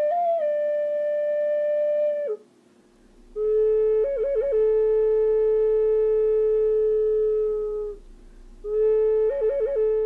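Native American flute playing a slow solo melody: long held notes separated by two short breath pauses, the first note sliding down as it ends, and the later, lower notes broken by quick fluttering trills.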